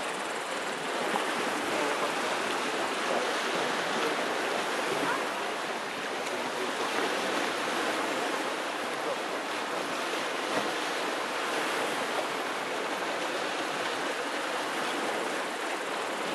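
Steady hiss of sea waves, an even wash without distinct breaks.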